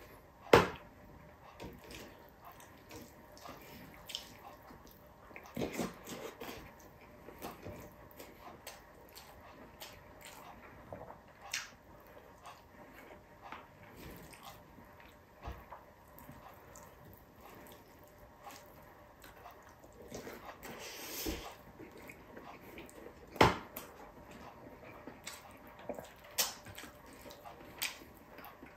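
Eating sounds: close-up chewing and wet mouth clicks and smacks, with a few sharp knocks or clinks of dishes, two of them loud, one just after the start and one about five seconds before the end. A brief rush of noise about two-thirds through.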